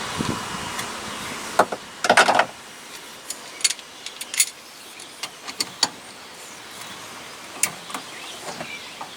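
Metal tool clicks and clinks as a puller works a Polaris RZR's factory steering wheel loose from its shaft. There is a sharp click, then a louder short rattle about two seconds in, then scattered light clicks.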